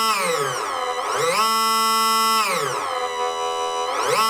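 Electric smoke pump whining as it pumps smoke oil, its pitch following the throttle stick: winding down just after the start, speeding up about a second in to a steady high whine, winding down again, then speeding up once more near the end.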